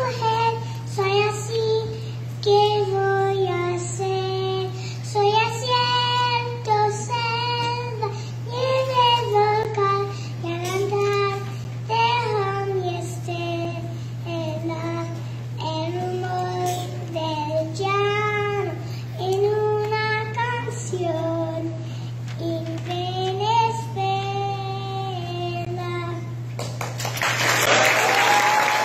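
A young girl singing solo into a microphone, with no accompaniment heard, over a steady low hum from the sound system. Her song ends about 26 seconds in and applause breaks out.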